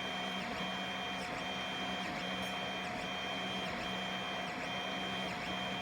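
FDM 3D printer's stepper motors whining as the print head shuttles back and forth laying diagonal lines. The whine starts and stops with each move, roughly every half second to a second.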